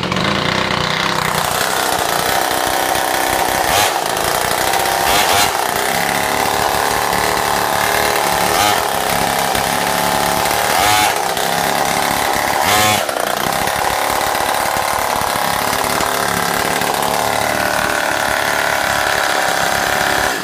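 Small two-stroke pit-bike engine running with no muffler, loud, with a few quick throttle blips that raise the revs, then cutting off at the end.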